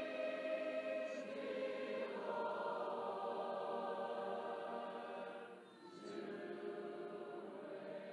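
A cappella congregational choir of over 1,300 voices singing a hymn in long held chords. The chord changes about two seconds in, and after a brief break near six seconds another chord is held.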